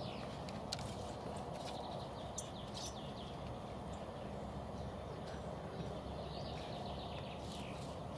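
Outdoor ambience: a steady low rush, with small birds chirping and twittering now and then over it.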